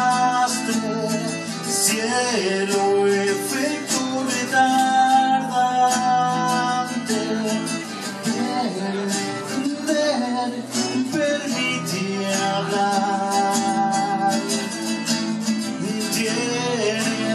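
Acoustic guitar accompanying a man singing a slow song, with long held sung notes.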